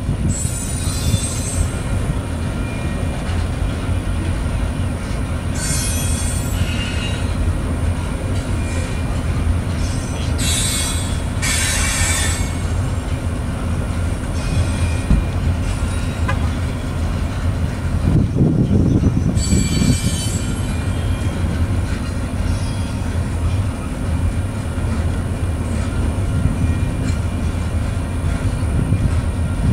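Covered hopper cars of a freight train rolling past: a steady low rumble and rattle of steel wheels on the rails, broken by several bursts of high-pitched wheel squeal.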